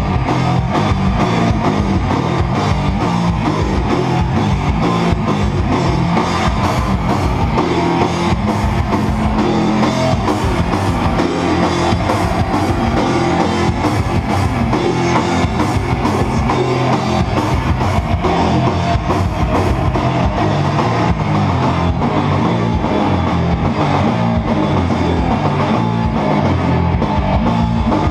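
A sludge metal band playing live at full volume: heavily distorted electric guitar through Marshall stacks over a drum kit, one dense, unbroken wall of sound.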